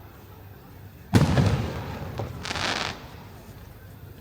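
One aerial firework shell bursting with a sharp boom a little over a second in, its low rumble echoing away, followed by a brief hiss from the burst's effects about half a second long.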